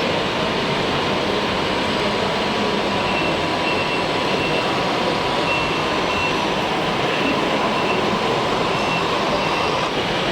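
Radio-controlled construction machine models running: a steady mechanical rumble and hiss with a faint constant whine. From about three seconds in, a faint high beep repeats about twice a second, like a reversing beeper.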